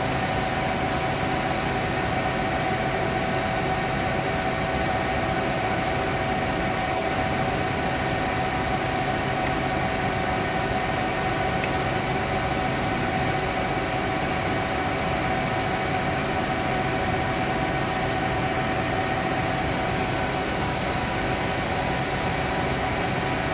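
Steady mechanical hum: an even hiss with a constant mid-pitched tone, like a fan or ventilation unit running without change.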